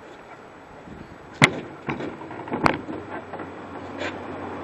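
A few sharp knocks and bumps against a canoe hull as it is carried overhead and brought onto the back of a pickup truck, the loudest about a second and a half in.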